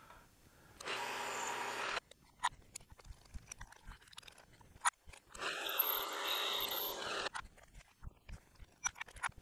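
Light metal clicks and knocks of tools being handled at a milling machine's drill chuck while a bit is changed. Two stretches of steady noise, one about a second long near the start and one about two seconds long a little past the middle, come between the clicks.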